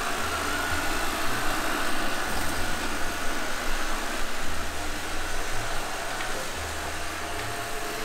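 Eufy robot vacuum cleaner running with a steady whir, under a low rumble that cuts in and out every second or so.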